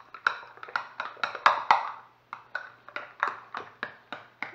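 A spoon clinking and scraping against a ceramic bowl while stirring a thick, creamy mixture, about four clinks a second with a brief pause about two seconds in.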